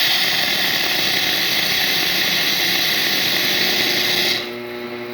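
Lelit Bianca espresso machine's steam wand and hot water outlet hissing loudly and steadily, dropping about four seconds in to a quieter steady hum. The owner finds the steam boiler running too hot, up to 2.4 bar, so the water comes out way too hot.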